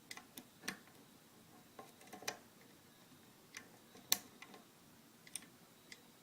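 Irregular small metallic clicks of a deep hook pick working the pins of a five-pin pin-tumbler lock under a tension wrench, with one sharper click about four seconds in.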